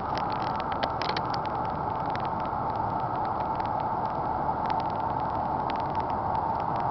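Distant military jet engines running at takeoff power on the runway: a steady jet roar with a high whine, slowly growing louder, with small crackles over it.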